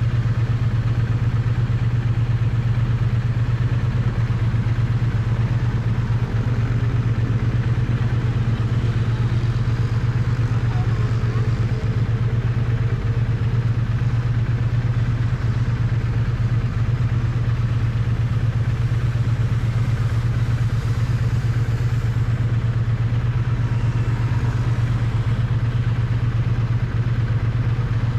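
Triumph Bonneville T100 parallel-twin engine and exhaust running at a steady, unchanging speed, picked up close to the exhaust.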